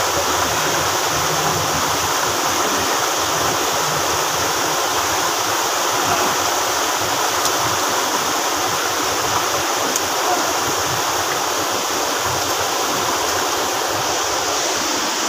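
Rocky mountain stream rushing over boulders and down a small cascade: a steady rush of water.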